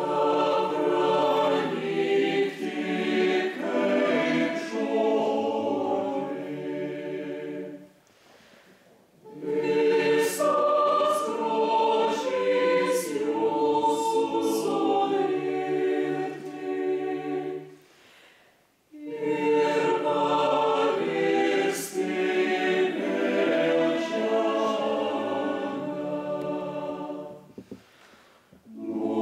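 Mixed choir singing a Lutheran hymn in three phrases of about eight seconds each, with a short breath-pause between phrases.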